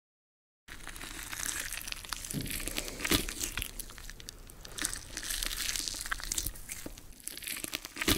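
Close-up ASMR crunching and crackling sound effect, a dense run of small crisp clicks and crinkles like something dry being scraped and crushed. It starts after a brief silence, with sharper snaps about three seconds in and again near the end.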